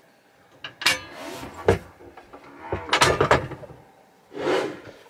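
Caravan dinette table being put back together: the laminate tabletop and its metal table leg knocked and scraped into place, a handful of separate knocks and slides, with a softer swish near the end.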